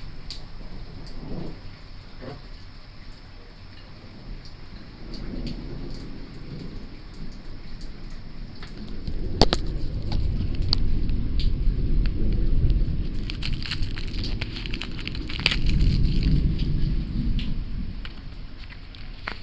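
Thunder from a nearby lightning strike: a sharp crack about halfway through, then a long rolling rumble that swells twice before fading, over the patter of rain.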